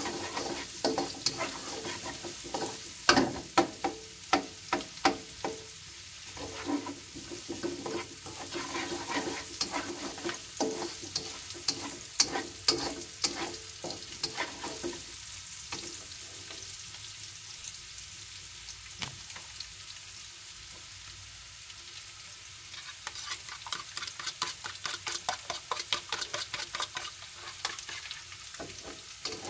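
Spatula scraping and tapping against a nonstick wok while shallots, garlic and chilies are stir-fried in oil, over a steady sizzle. The strokes come a few a second, ease off for several seconds in the middle leaving mostly the sizzle, and pick up again near the end.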